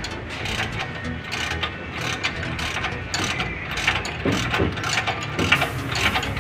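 Ratchet wrench clicking in quick strokes as the cable lug bolts on a generator's breaker terminals are turned, with a few sharper metal knocks in the second half.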